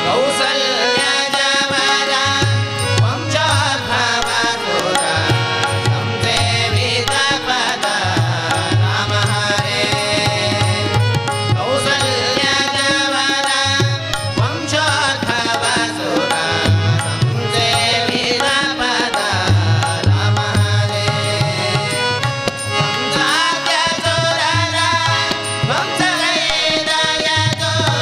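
Devotional bhajan performed live: male voices singing to harmonium, with tabla playing a steady rhythm and a low drum tone pulsing under it.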